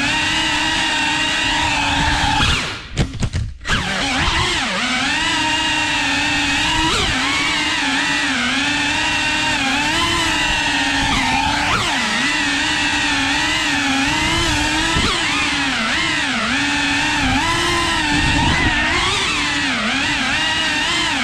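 FPV quadcopter's brushless motors and propellers whining, the pitch rising and falling constantly with the throttle. About three seconds in the sound drops out several times in quick succession as the throttle is chopped, then picks up again.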